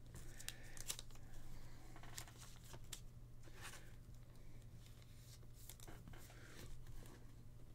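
Faint rustling and light clicks of trading cards being handled and sorted by hand.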